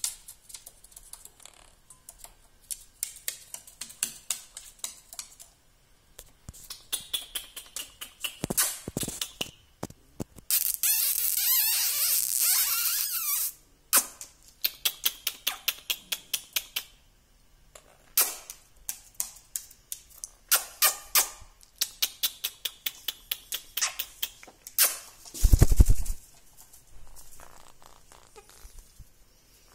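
Monk parakeets moving about a wooden shelf: runs of quick clicks and taps, with a louder, noisy stretch of about three seconds near the middle. A loud low thump comes near the end.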